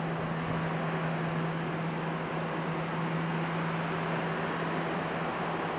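Steady wind noise with a constant low machinery hum from the cruise ship's deck equipment, running evenly with no breaks.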